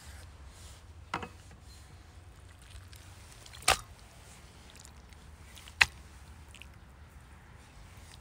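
Three separate sharp knocks while raw beef liver is handled, from a knife on a wooden cutting board and pieces set into an enamel bowl, over a faint low hum.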